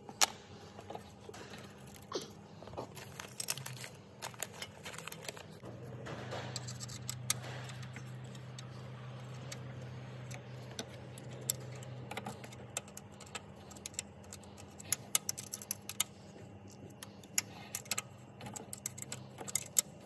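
Scattered small metal clicks and clinks of a hand tool working a fender bolt and washer. A low steady hum runs through the middle for several seconds.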